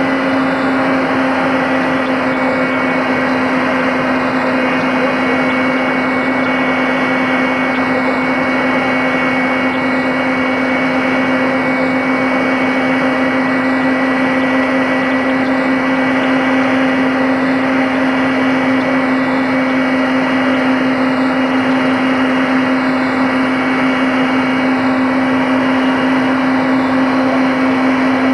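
Mi-8MTV-1 helicopter in flight, heard from inside: a loud, unbroken drone of turbines, gearbox and rotor, with a strong steady low hum and a fainter high whine over a dense rushing noise.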